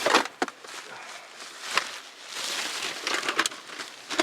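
Rustling of gear being pulled out of a rucksack, with a few sharp knocks and clicks as items are handled and set down.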